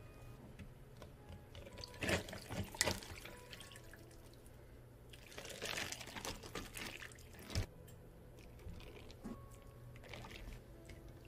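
Milk, then water, then a thin stream of espresso poured into plastic cups filled with ice. A few sharp clicks come about two seconds in, the loudest pour runs from about five to seven and a half seconds and ends in a knock, and a fainter pour follows near the end.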